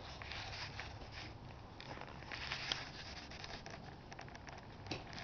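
Soft scratching and rustling as puppies' paws move on wooden deck boards and a hand rubs a puppy's fur, with a few light clicks.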